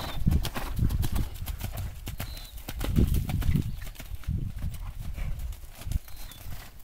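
Hoofbeats of horses cantering on the sand footing of a riding arena: a run of dull strikes that grows louder about three seconds in.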